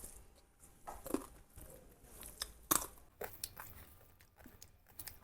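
Quiet, scattered crunches and clicks of eating close to the microphone: food being handled and chewed, with small knocks of dishes.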